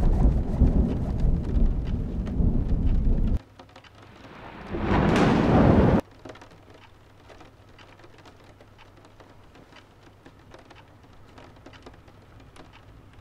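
A loud, deep storm-like rumble with rain noise that cuts off abruptly about three seconds in. A rising whoosh then swells for about a second and stops dead, leaving quiet room tone with faint scattered ticks.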